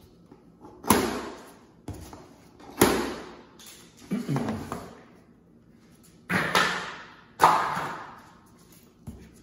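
Scissors cutting tensioned plastic packing straps on a cardboard box: about five sharp snaps and slaps as the straps give way and spring loose against the box and floor, each fading off quickly.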